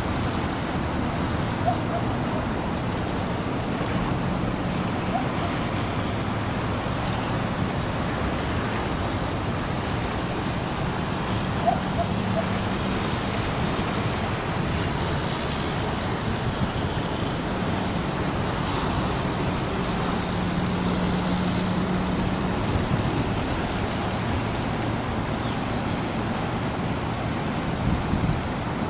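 Steady rushing noise of wind and the swollen, fast-moving river, with a faint low hum that comes and goes around the middle.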